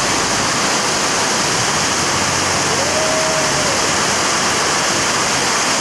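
Muddy floodwater rushing down a street as a fast torrent, a loud, steady roar of water.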